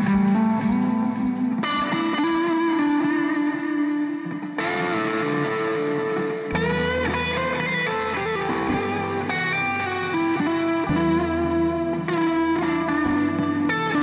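Instrumental background music led by guitar with effects, a deep bass part coming in about halfway through.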